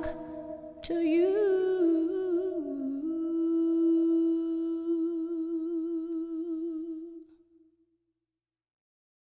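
Closing vocal of a song: a singer's voice bends in pitch, then holds one long note with vibrato that fades out after about seven and a half seconds, leaving silence.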